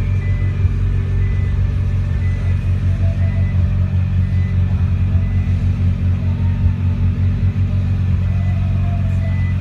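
Nissan GT-R's twin-turbo V6 idling steadily with a low, even rumble.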